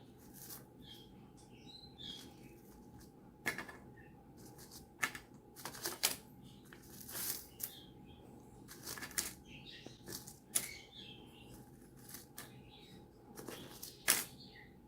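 An Australian king parrot tearing and crunching at an edible wheat-bran foraging bowl, with irregular sharp cracks and rustles as pieces break off and scatter.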